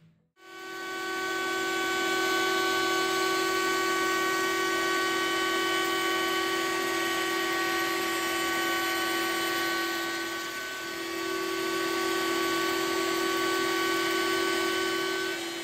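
Table-mounted router spinning a bearing-guided bit, cutting around the edge of a wooden guitar body and throwing off shavings. It makes a loud, steady high whine, with a brief dip about two-thirds of the way through.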